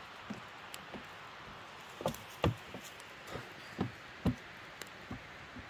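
Footsteps on dry leaf-covered forest ground: a run of dull thumps about twice a second, starting about two seconds in, over a steady faint hiss.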